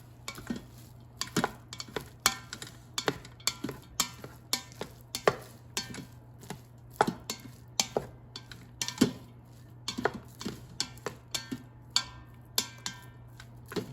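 A utensil stirring cooked coconut rice in the Instant Pot's stainless-steel inner pot, knocking and scraping against the pot about once or twice a second, some strokes leaving a short metallic ring.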